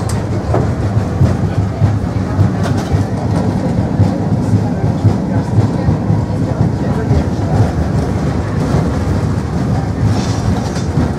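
Ganz UV tram running along the line, heard from between its coupled cars: a steady, loud rumble of steel wheels on the rails with occasional clacks.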